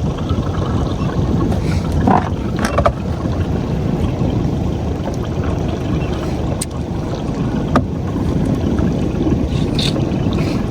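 Steady low rumble of a fishing boat at sea, with wind and water noise and a few short knocks and clicks.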